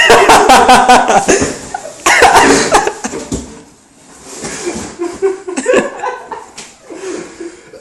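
Several people laughing loudly in bursts, with coughing laughs mixed in.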